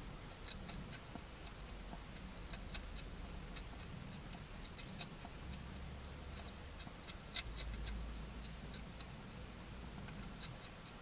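A hedgehog chewing dry food: small, sharp, irregular clicks and crunches, several a second, with a cluster of louder ones about seven seconds in.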